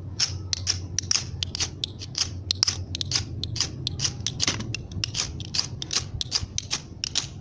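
A fire-steel (ferrocerium rod) struck over and over in quick short scrapes, about three or four a second, throwing sparks onto a wax-soaked tinder ball to try to light it.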